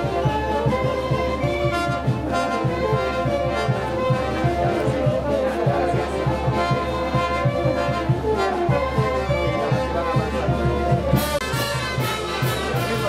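Brass band playing, with trumpets and trombones holding melody notes over a steady drum beat. Cymbal crashes come in near the end.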